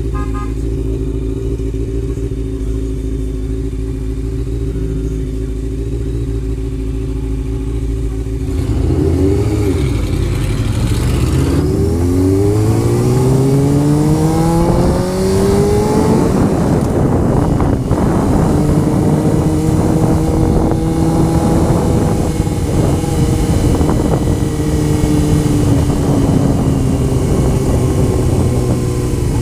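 Honda CBR motorcycle engine running at a steady note, then accelerating about nine seconds in, its pitch climbing for several seconds before holding steady at cruising speed, with wind noise on the helmet microphone.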